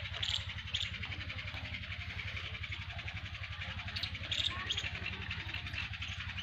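An engine running steadily with an even, low throb, and a few short high chirps about half a second in and again around four seconds in.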